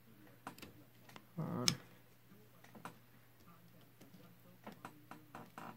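Faint, scattered small metallic clicks and ticks of a tuning capacitor's ball-bearing drive being pried open and handled by hand while a ball bearing is fitted. A short murmur and a sharper click come about a second and a half in.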